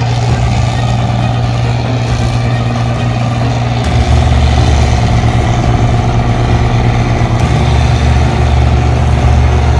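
New Holland 8080 combine harvester engine running steadily with a low, continuous hum. A deeper drone joins about four seconds in and the sound gets slightly louder.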